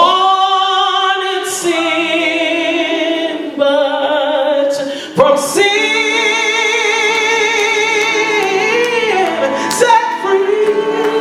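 A man singing a gospel song into a microphone, stretching a word over a few long held notes with vibrato and short melodic runs.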